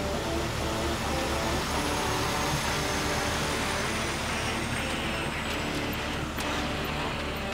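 Heavy diesel equipment engine running steadily, with a faint high whine that slowly falls in pitch.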